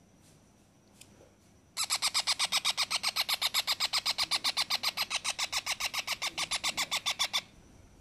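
A 20-day-old parrot chick calling in a fast, even series of harsh chirps, about seven a second, for five or six seconds, starting about two seconds in. These are the begging calls that a hand-fed chick gives when its beak is touched.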